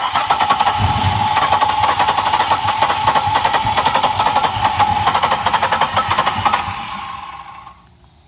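Starter motor cranking the 1999 Pontiac Grand Prix GT's 3.8-litre V6 for about seven seconds without it starting: a steady starter whine with a fast, even chugging rhythm, winding down near the end. The engine is a no-start that, by the owner's account, wants to fire but doesn't catch.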